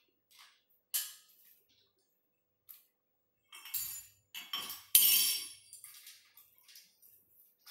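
Small metal treadmill parts and tools clinking and rattling while the frame is put together: a sharp click about a second in, then a louder run of clinks and rattling between about four and six seconds in.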